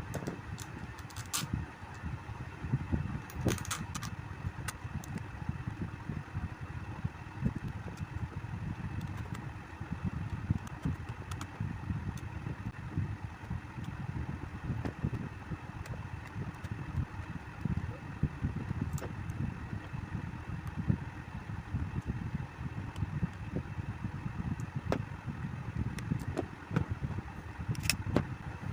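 Electric table fan running with a steady, fluttering low hum, broken by a few sharp clicks near the start and near the end.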